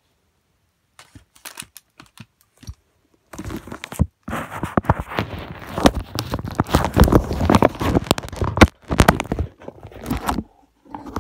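Plastic packaging of a diamond painting kit crinkling and rustling as it is handled, with many small sharp clicks; it starts about a second in, is busiest through the middle and eases near the end.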